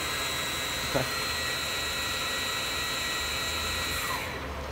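Star SA-12/16 Swiss-type CNC lathe running with its spindles turning: a steady high whine over a hiss. A short falling sweep comes about a second in, and the high whine and hiss drop away near the end.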